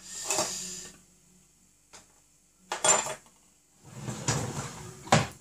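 Metal kitchen utensils clinking and clattering off-camera in three short bouts. The last is a longer rattle that ends in a sharp clink.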